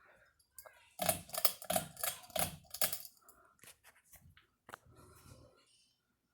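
A quick run of sharp clicks and knocks, about four or five a second for two seconds, then a few scattered clicks with one louder knock near the end.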